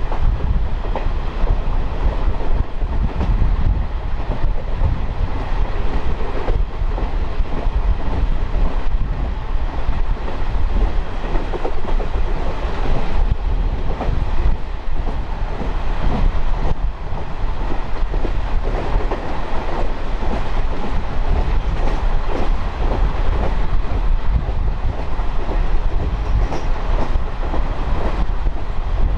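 DEMU (diesel-electric multiple unit) train running, heard from on board: a steady, loud rumble with a few scattered knocks from the wheels passing over rail joints.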